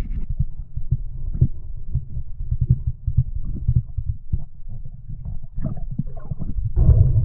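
Irregular muffled low thumps and knocks, several a second, heard underwater through the camera housing as a speared wahoo struggles in the diver's grip, with a faint steady hum underneath.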